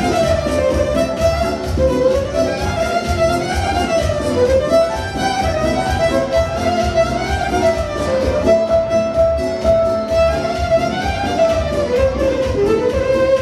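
Romanian folk dance music for a hora: a violin leads a quick, ornamented melody over a steady, even beat.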